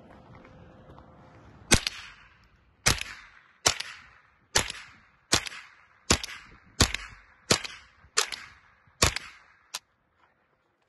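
Tippmann M4-22 semi-automatic .22 LR rifle firing eleven shots in steady succession, about one every three-quarters of a second. Each is a sharp crack with a short echoing tail.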